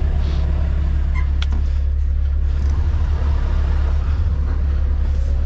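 Scania S770's 16-litre V8 diesel running steadily, a deep even rumble heard from inside the truck cab.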